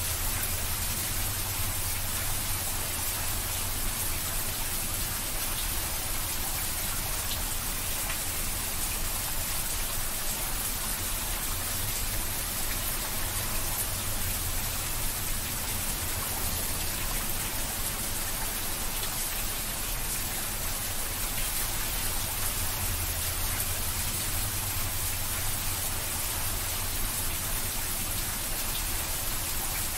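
Heavy rain falling steadily on a flat rooftop: a dense, even hiss of drops splashing, with a steady low rumble underneath.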